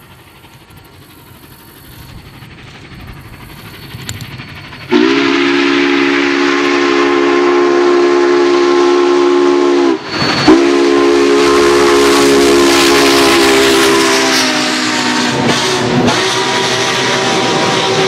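Union Pacific 844 steam locomotive's chime whistle, blown loudly in long blasts that cut in suddenly about five seconds in, with short breaks about halfway through and again near the end. Beneath it is the rising rush of the approaching train, which passes at speed.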